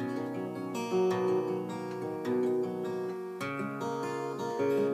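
Acoustic guitar played alone, strummed chords ringing and changing every second or so.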